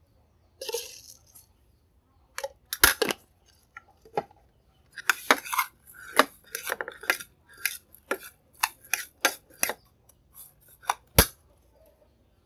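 Metal spoon clinking and scraping against a ceramic plate while stirring minced lemongrass with seasoning: a rapid, irregular run of sharp clinks, the loudest near the start of the stirring and one more just before it stops.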